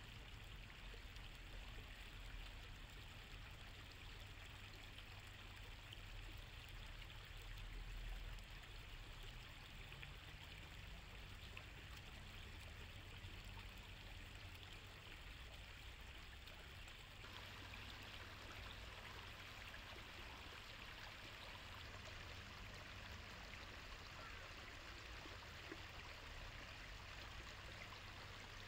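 Faint, steady trickle of a shallow stream running over stones, with a low steady hum underneath.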